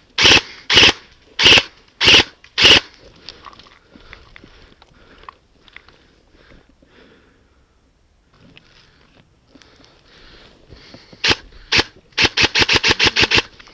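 Airsoft M4 electric rifle (AEG) firing: five single shots in quick succession, then two more near the end, followed by a rapid full-auto burst of about a dozen shots.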